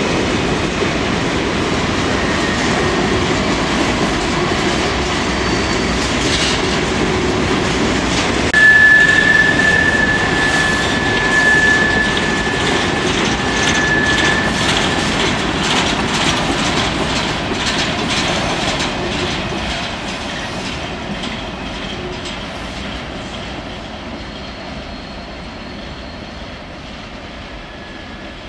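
Freight train of covered hopper cars rolling through a curve, steel wheels rumbling and clicking over the rail, with a high steady wheel squeal for several seconds near the middle. The sound fades steadily in the second half as the train moves away.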